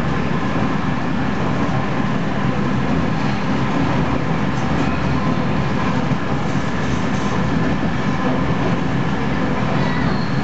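Heritage diesel railcar running along the line: a steady engine drone mixed with wheel and rail noise, even in loudness throughout.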